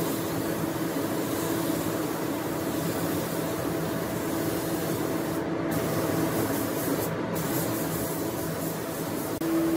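Gravity-feed air spray gun spraying wood finish onto a headboard: a steady hiss of air and atomised finish over a steady low hum. The hiss drops out briefly twice past the middle.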